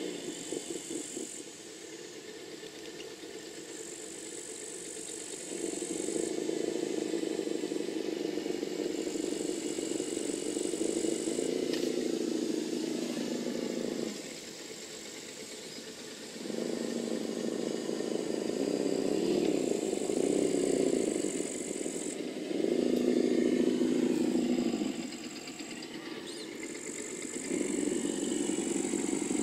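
SENSE Innovations ESS-One+ sound module in an Axial SCX10 RC crawler playing a simulated engine: a low idle that swells into louder stretches of throttle several seconds long, the pitch rising and falling, then drops back to idle. A high whine comes and goes with it.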